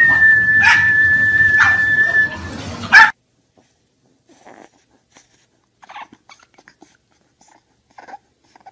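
A pack of pug dogs running over a wooden floor, a rumbling clatter of paws with a few knocks, under a long, steady high whistle held for about three seconds. A loud knock comes at about three seconds, then faint, short whimpers and snuffles from an English bulldog puppy.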